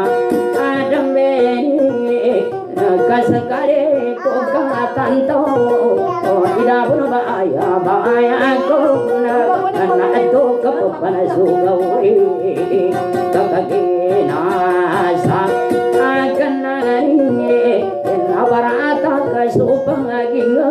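Acoustic guitar played solo in the Maranao dayunday style: a busy plucked melody over notes that ring on steadily underneath.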